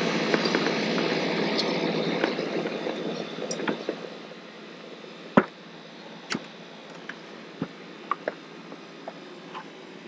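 A steady rushing noise that fades out about four seconds in, then scattered light clicks and knocks from hands working on parts and fittings inside a motorcycle's front fairing. The loudest knock comes about halfway through.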